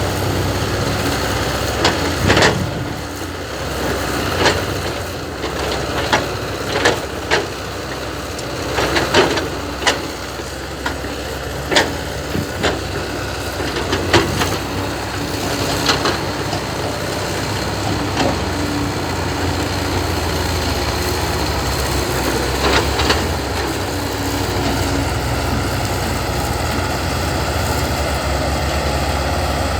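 Heavy diesel engines running steadily, with a series of sharp, irregularly spaced knocks and clatters through the first half and one more a little past the middle.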